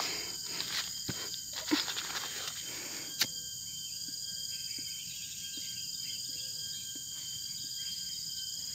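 A lighter clicks once, sharply, about three seconds in, after a few seconds of handling rustles. Behind it insects chirr steadily, with thin high tones.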